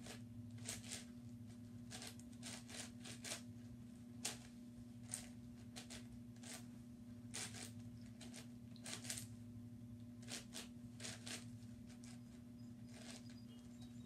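YuXin 9x9x9 puzzle cube being turned by hand: irregular clicks and clacks of the plastic layers, in quick runs with short gaps. A steady low hum sits underneath.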